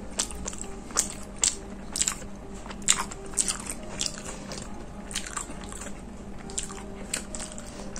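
A person biting into and chewing a toasted egg sandwich with spicy chicken: irregular crunches and sharp mouth clicks, close to the microphone.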